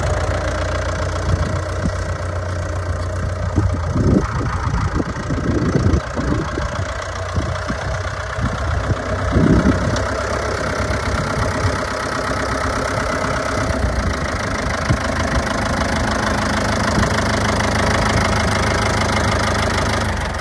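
1965 Ford 5000 tractor engine running steadily at low speed while the tractor is driven slowly, with a few brief rougher patches about four, six and nine seconds in.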